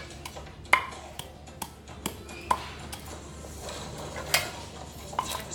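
Wooden pestle pounding peanuts in a wooden mortar: a string of sharp, irregular knocks and cracks, some with a brief ring.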